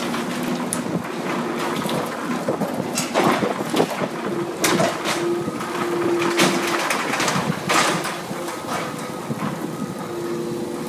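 Excavator demolishing a building's steel frame: irregular clangs, crunches and scrapes of metal and debris, with an on-and-off whine from the machine.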